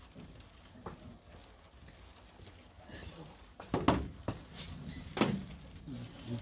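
Several sharp knocks and footfalls, loudest just before four seconds in and again just after five, as someone comes through a wire-mesh garden gate and steps down concrete steps.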